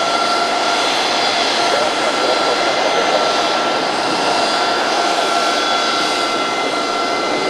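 Dassault Falcon 6X business jet's twin turbofan engines running with a steady whine over a rush of jet noise, holding an even pitch.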